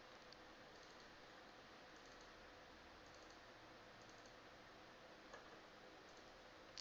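Near silence: faint room hiss with a few light, scattered computer mouse clicks, one a little more distinct about five seconds in.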